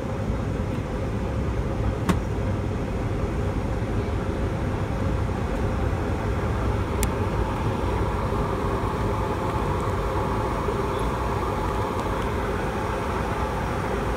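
Boeing 757-200's jet engines running at idle thrust during taxi, heard inside the cabin as a steady rumble and hiss. A sharp click about two seconds in and another about seven seconds in.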